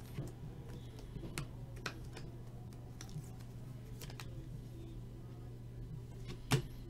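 A few faint clicks and taps of a trading card and a rigid plastic toploader being handled, the sharpest near the end, over a steady low hum.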